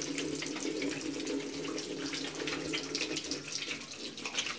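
Bathroom washbasin tap running, with irregular splashing as hands wash in the water under it.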